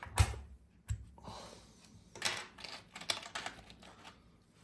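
Plastic keycaps being handled on a mechanical keyboard: two sharp clicks in the first second, then irregular bursts of small clicks and clatter as caps are set against the keys.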